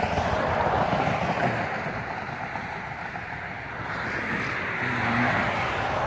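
Road traffic passing: a steady tyre rush that fades about halfway through and swells again near the end.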